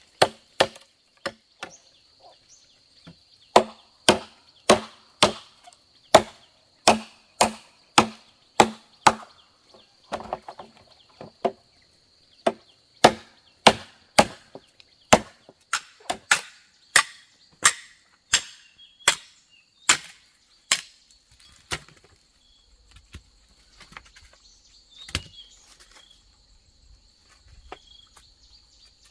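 Bamboo being chopped with a blade, sharp regular strikes about one and a half a second that thin out to a few scattered, softer blows about two-thirds of the way in. A steady high insect drone sounds behind them throughout.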